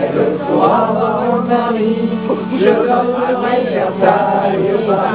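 A roomful of people, men and women, singing a song together.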